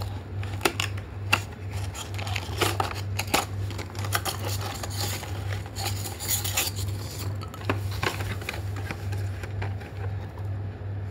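A small cardboard toy box being handled and worked to free a collector card stuck inside: scattered clicks, taps and scraping rustles of cardboard. A steady low hum runs underneath.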